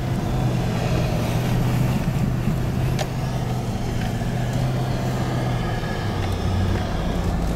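Hummer 4x4's engine running as the truck drives up a snowy off-road trail, heard from inside the cab; the low hum dips in pitch about five and a half seconds in, then rises again.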